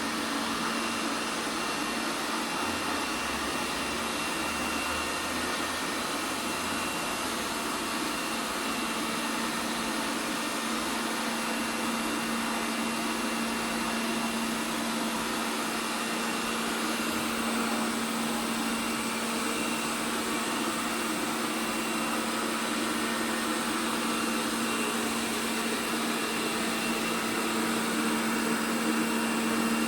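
ELARI SmartBot Lite SBT-002A robot vacuum cleaner running, a steady whirring noise with a constant low hum.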